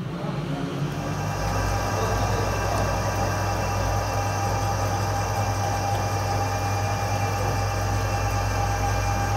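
Metal lathe running steadily, turning a steel blank while the tool bit cuts across its face: an even hum with a steady whine above it.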